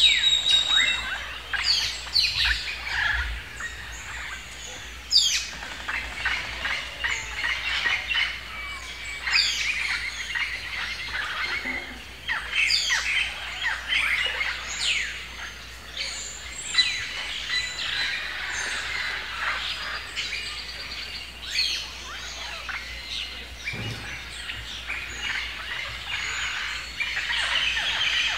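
Many birds chirping and calling, a busy stream of short, quick, overlapping chirps.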